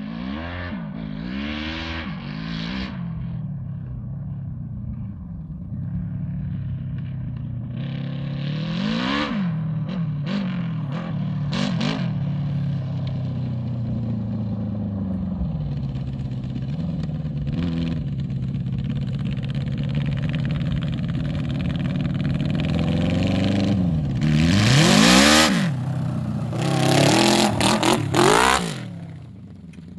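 Home-built quad bike's Yamaha YZF1000R Thunderace inline-four engine revving up and dropping back again and again through the gears as it rides across dirt. It gets louder near the end as the quad passes close, with two bursts of rushing noise.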